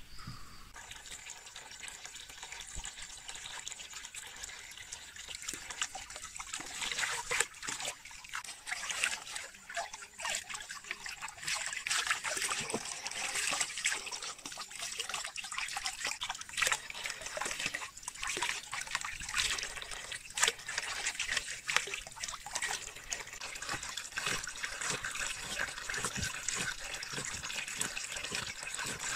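Water running and splashing, with many irregular small splashes and knocks; it grows louder several seconds in.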